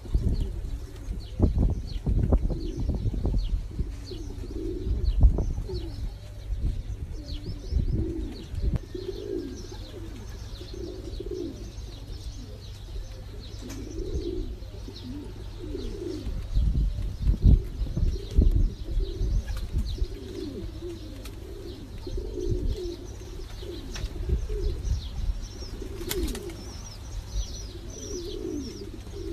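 Domestic pigeons cooing over and over, many short low coos from several birds overlapping.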